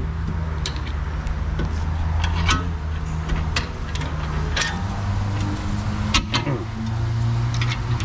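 Low steady drone of a vehicle engine, its pitch shifting about five seconds in, with scattered sharp clicks and clinks of hand tools on metal suspension parts.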